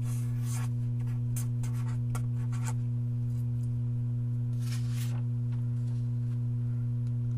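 Marker pen scratching on paper in short strokes for the first few seconds, then a sheet of paper sliding and rustling about five seconds in, all over a constant electrical hum.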